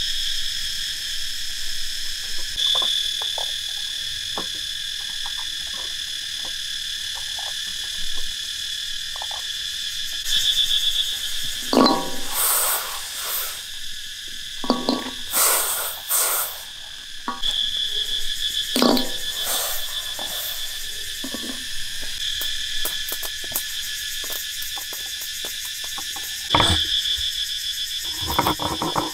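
Steady high-pitched chorus of insects, several pitches droning together, some of them pulsing, with occasional clatter and scraping from handling things nearby.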